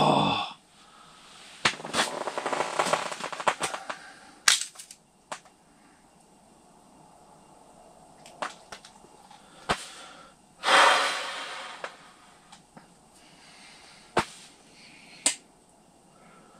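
Small ice-fishing reel cranked hard for about two seconds, a fast run of fine clicks, while a crappie is pulled up to the hole, then scattered sharp clicks and knocks. A loud breathy rush of noise about eleven seconds in.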